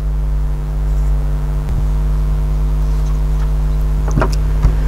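A steady low hum, with a few light clicks and taps of fingers handling the thermocouple sensor inside a thermos lid, once about two seconds in and twice near the end.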